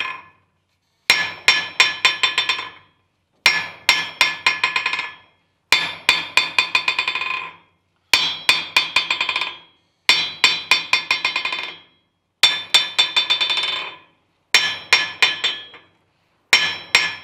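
Ball-peen hammer tapped on the face of an anvil in about eight quick runs of roughly half a dozen light blows each, the steel ringing between strikes. It is a hammer test of rebound and ring, checking that welding on the anvil has not drawn the temper out of its face.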